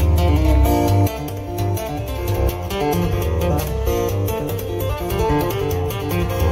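Guitar music playing back from a cassette on a Pioneer CT-F1000 stereo cassette deck.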